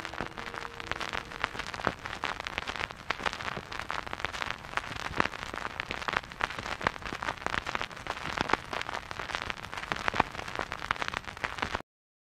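Vinyl record surface noise: a dense crackle of pops and clicks from the stylus in the groove, with no music, cutting off suddenly near the end.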